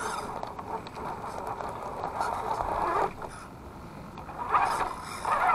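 Electric motor and gear drivetrain of an Axial SCX10 II RC crawler whining as it climbs over a log, in uneven surges that swell about three seconds in, again past four and a half seconds, and near the end; heard close up from a camera mounted on the truck.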